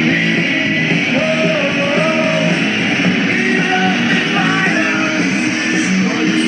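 Rock music with guitar and a singing voice played through a Boss Audio MC420 motorcycle speaker system.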